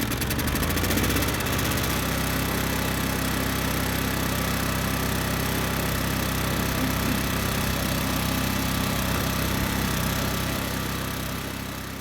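Subaru SG550 portable generator's small engine running steadily after its carburetor was overhauled, fading out near the end.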